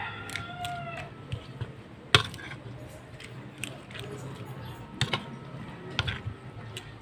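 A spoon stirring a wet batter of mung bean sprouts in a ceramic bowl. It clinks and scrapes against the bowl in sharp knocks, the loudest about two seconds in, with more near five and six seconds.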